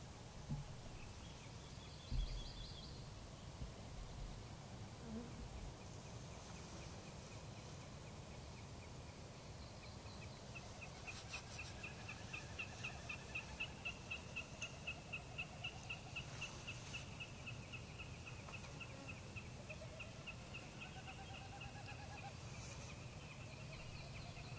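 A bird calling in the background: a long, even series of short high notes, about four a second, starting about ten seconds in and going on to the end, over a faint low rumble.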